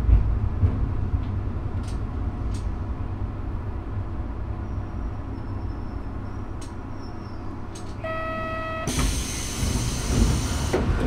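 Diesel railcar's engine running with a low rumble as the train slows to a stop, with a few light clicks from the track. About eight seconds in, a steady electronic tone sounds for about a second, then a loud hiss of air starts as the train stands at the station.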